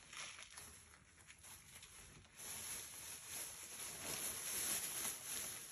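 Plastic shopping bag rustling and crinkling as hands dig through it, growing louder about two and a half seconds in.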